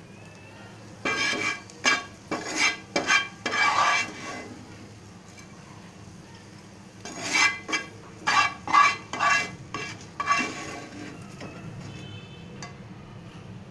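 Wooden spatula scraping and knocking against a non-stick frying pan while the fried green chilies are scraped out. The strokes come in two spells of quick scrapes and taps a few seconds apart.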